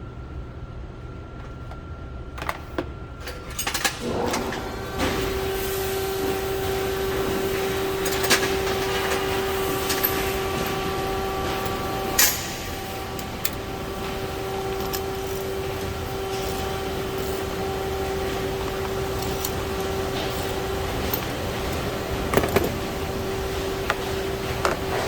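Hand tools clicking and knocking at the engine while the spark plugs are removed, over a steady machine hum that starts about four seconds in.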